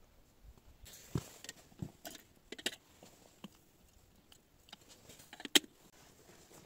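Scattered crunches and clicks of footsteps on snow-covered ground and a dog eating meat off the ground. The loudest is one sharp click near the end.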